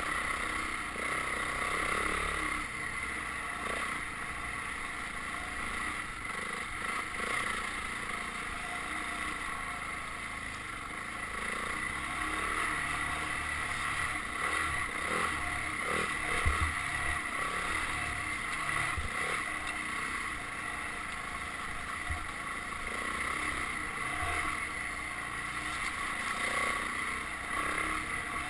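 Dirt bike engine running steadily while being ridden, with wind rumbling on the microphone and a few short knocks from the rough ground.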